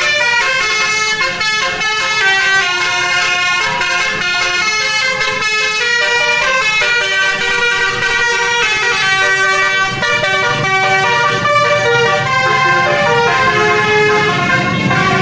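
Basuri telolet multi-tone bus air horn playing a melody, its notes stepping quickly up and down in a tune.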